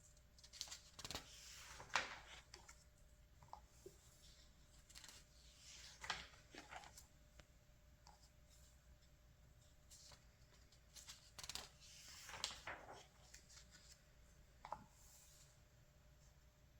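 Glossy magazine pages being turned by hand: a few rustling swishes of paper several seconds apart, with light crinkles and taps in between.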